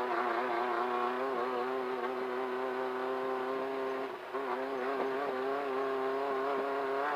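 Class 1500 off-road race car's engine running hard at steady high revs. It drops for a moment about four seconds in, as the throttle is lifted or a gear is changed, then picks back up.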